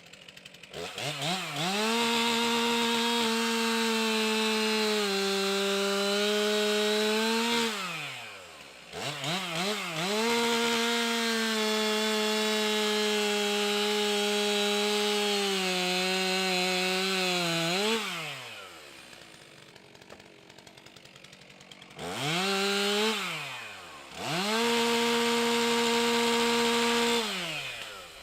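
Stihl MS 362 C-M two-stroke chainsaw revved to full throttle and cutting wood: three long runs, the pitch sagging a little under load in each, falling back to idle between them, with a short blip of throttle before the last run.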